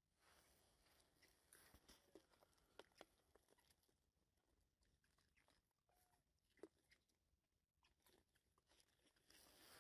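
Faint, scattered crunches and clicks of a macaque biting and chewing a small green fruit.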